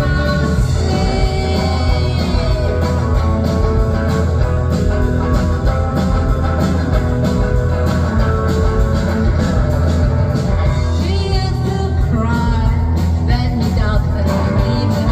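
A rock and roll band playing live, with singing over guitar and a steady drum beat.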